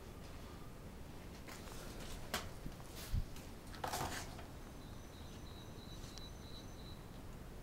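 A few sharp knocks and a low thump in the middle, as the camera is carried out through a doorway. Near the end comes a faint, high, steady whistling tone that lasts about two seconds.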